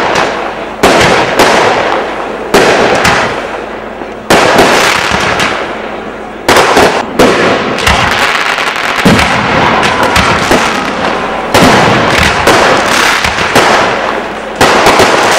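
Fireworks going off: about a dozen sharp bangs at irregular intervals, roughly a second or two apart, each fading into the hiss of burning effects.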